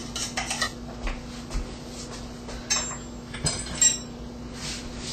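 Fresh mint being muddled in a bowl: a utensil crushing the leaves and knocking against the bowl in irregular clinks and taps, the sharpest a little before the end.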